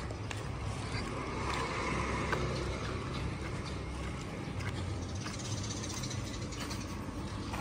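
Steady low rumble with a hiss over it and a few faint clicks, the background noise of a busy place.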